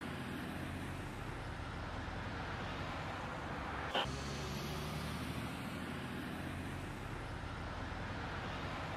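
Steady engine and road noise inside a car cabin as picked up by a dashcam, with one brief sharp click about four seconds in.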